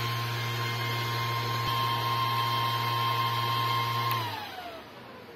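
1000 W FM broadcast transmitter running at 500 W on the bench: a steady hum with its cooling fan whirring and a high whine. About four seconds in, the hum cuts off and the whine falls in pitch as the fan winds down with the transmitter powered off.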